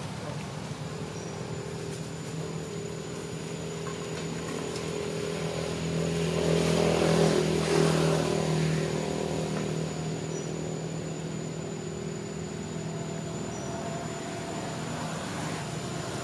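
A motor vehicle's engine humming steadily, growing louder from about six seconds in as it passes close, peaking around the middle, then fading back to a steady hum.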